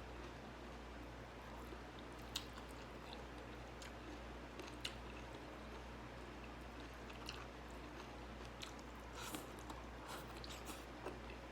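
A person chewing and biting food close to the microphone, with scattered faint crunches and mouth clicks over a steady low hum.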